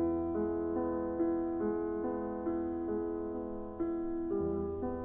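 Background piano music: a gentle melody of held notes changing about every half second over a sustained bass note, which shifts about four seconds in.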